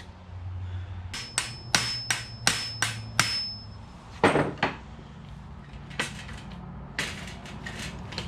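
Hammer striking metal bicycle parts. About a second in comes a quick run of about seven blows, with a thin high ring hanging under them, followed by a few more scattered strikes.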